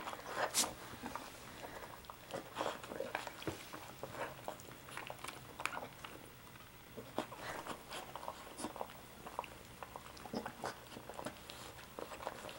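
Soft Coated Wheaten Terrier mother licking and mouthing her newborn puppy: irregular wet licking and smacking sounds, the dam cleaning the pup just after birth.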